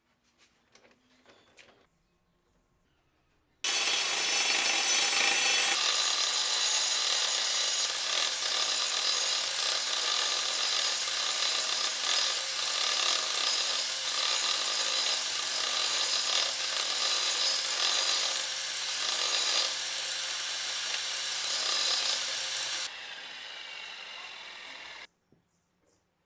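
Circular saw cutting through wood with a steady motor tone under the cutting noise. It starts abruptly about four seconds in, drops quieter about three seconds before the end and then cuts off suddenly.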